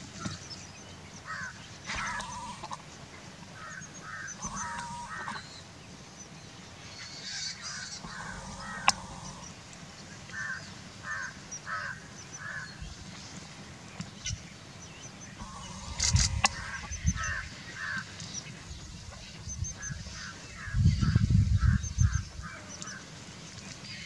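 A flock of vultures squabbling at a carcass: runs of short, cackling, honk-like calls, several a second, with two louder bursts that carry a deep rumble about 16 and 21 seconds in.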